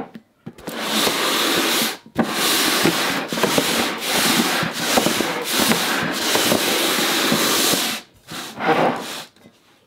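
An upturned stainless-steel colander and a plastic bowl being slid and shuffled across a tabletop, making a continuous scraping rub. It breaks off briefly about two seconds in, stops about eight seconds in, and gives one more short scrape near the end.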